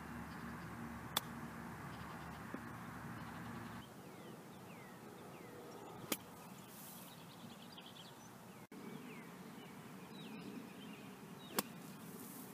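Golf club striking three times, each a single sharp click: a chip shot off the grass about a second in, then two bunker shots out of the sand, the second near the end. Birds chirp faintly in the background.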